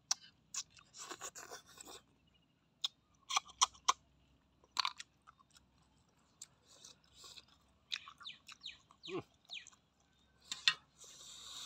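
A person sucking cooked snails out of their shells with hissing slurps between bouts of chewing, with a few sharp clicks as shells are handled.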